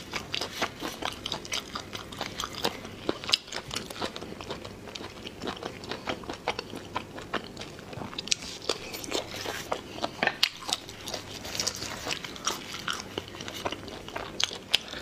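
Close-miked eating of spicy snails: sucking the meat from the shells and chewing, with wet smacks and clicks from gloved fingers pulling the snails apart, heard as an irregular string of sharp clicks and smacks.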